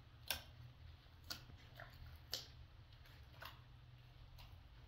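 Five sharp clicks about a second apart, over a low steady hum.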